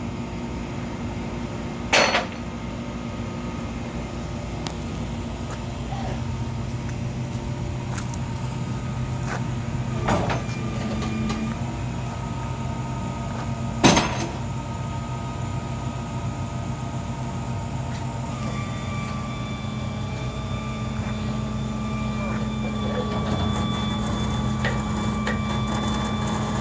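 A vehicle engine running steadily, its pitch shifting a couple of times, with three sharp knocks about 2, 10 and 14 seconds in.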